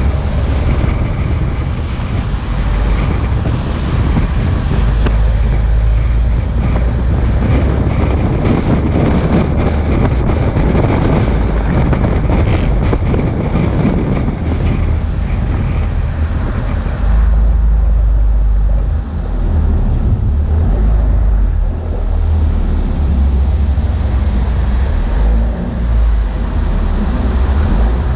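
Loud, steady rumble of a moving vehicle, with wind on the microphone; partway through, the higher hiss thins while the low rumble carries on.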